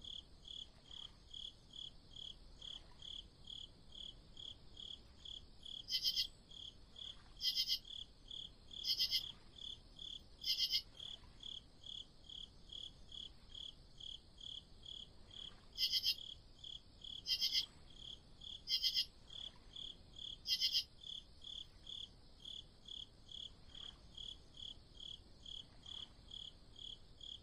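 Crickets chirping: an even stream of short chirps, about three a second, with a louder cricket chirping four times in a row twice, about six and sixteen seconds in.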